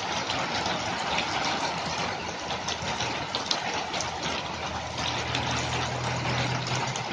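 Heavy rain falling: a dense, steady hiss dotted with the sharp patter of individual drops. A low steady hum joins about five seconds in.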